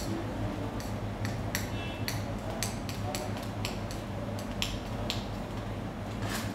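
Scattered light clicks and clinks, about a dozen, over a steady low hum.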